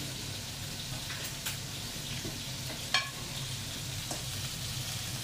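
Vegetables and greens sizzling steadily in a skillet on a gas stove, with one sharp clink of a ceramic plate about three seconds in.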